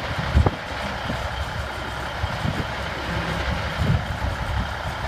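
1991 International 8200 tractor's Cummins NTC six-cylinder diesel idling steadily, with one brief low thump about half a second in.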